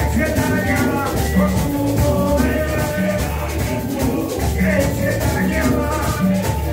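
Live amplified Pentecostal revival chorus: a steady repeating bass line with drums and hand percussion keeping a fast beat, and men's voices singing through microphones over the band.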